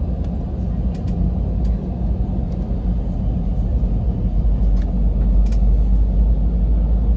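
Steady low cabin rumble of a jet airliner moving along the ground, growing slightly louder in the second half, with a few faint rattles.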